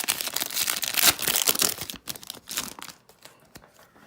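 Plastic wrapper of a trading card pack crinkling as it is torn open and handled, a dense crackle for about three seconds that then dies down to a few faint rustles.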